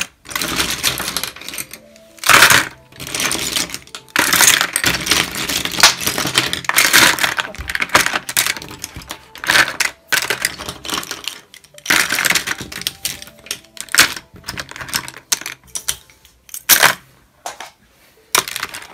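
Pens, pencils and markers clattering against each other and the sides of a clear plastic storage box as handfuls are tipped in and shuffled around, in many short rattling spells with brief pauses.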